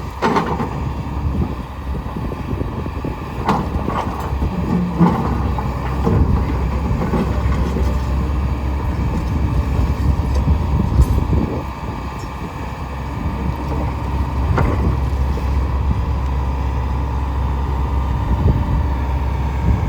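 Kobelco SK210LC-9 excavator's Hino diesel engine running under load with its hydraulics working, swelling for a few seconds in the middle, with several sharp clanks of the bucket against rock and concrete.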